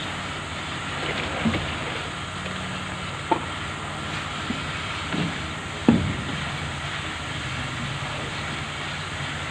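An engine runs steadily with a low hum, with several short sharp knocks or clanks over it; the loudest comes about six seconds in.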